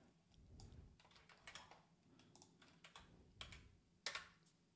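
Faint computer keyboard keystrokes: a scatter of short, irregular key clicks as a terminal command is entered, the loudest about four seconds in.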